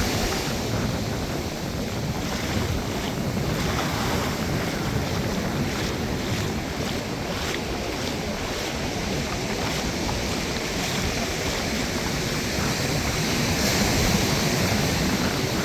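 Ocean surf washing up the beach, with wind rumbling on the microphone; the wash swells a little near the end.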